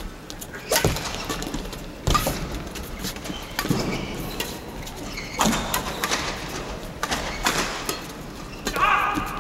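Badminton rackets striking a shuttlecock back and forth in a doubles rally: about six sharp hits, roughly one every second and a half. A voice calls out near the end.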